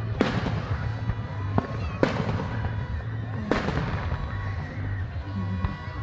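Fireworks going off: about four sharp bangs over the first three and a half seconds, each trailing into a crackling fizz. Steady music plays underneath.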